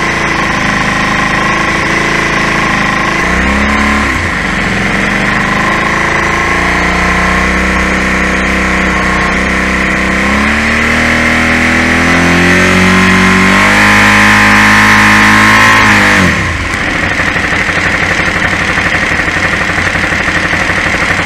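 KTM 990's LC8 V-twin engine running with vacuum gauges hooked to its throttle bodies for synchronisation, its speed rising and falling a few times, with a steady high whine over it. The revs climb and are held up from about twelve seconds in, then drop back sharply a few seconds later.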